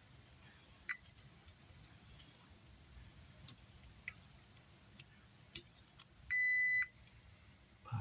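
A digital multimeter's continuity tester gives one short, steady beep about six seconds in, the sign of a closed, low-resistance path between the probe tips. Scattered faint clicks sound around it.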